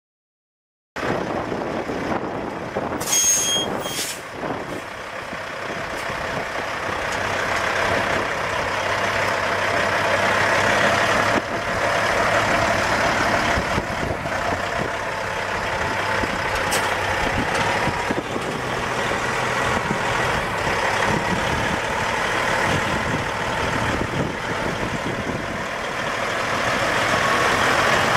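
2001 Peterbilt 387 semi tractor's Caterpillar C15 inline-six diesel idling steadily. A brief high hiss comes about three seconds in.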